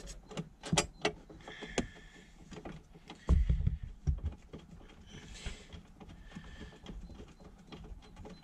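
Hands routing a thick power cable behind a car boot's carpet lining: rustling and scraping against the trim, with a string of small clicks near the start and a heavy thump about three and a half seconds in.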